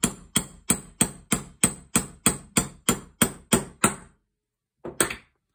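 Small ball-pein hammer tapping a pin into a Yildiz 20-bore shotgun's stripped action: about a dozen light, even metallic taps, three a second, each with a brief high ring. The taps stop about four seconds in, followed by two softer knocks.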